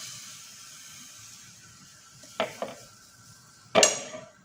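Crêpe sizzling in a frying pan, the hiss fading over the first couple of seconds. Two light taps follow, then a louder utensil knock near the end.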